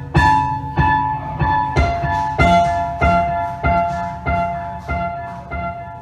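Experimental electronic music: a repeating pattern of chiming, keyboard-like notes struck roughly every two-thirds of a second. Each note rings on and decays, and the pattern slowly grows quieter toward the end.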